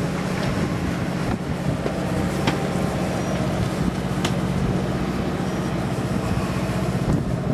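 Sportfishing boat's engine running at a steady low hum, over a wash of wind and sea noise, with a few faint ticks.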